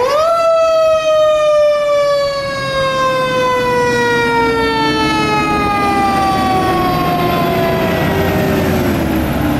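Fire truck's mechanical siren spinning up sharply to a high pitch, then coasting down in one long, slowly falling wail, with the truck's engine running beneath it.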